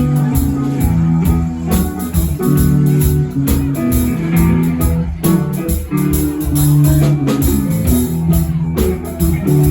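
A band playing: guitar over bass notes and drums with a steady beat.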